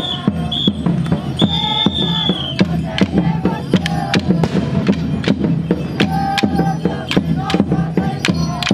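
Wooden dance sticks of a moçambique group clacking against each other again and again in the dance rhythm, over drumming and voices. A high whistle sounds briefly at the start and again for about a second shortly after.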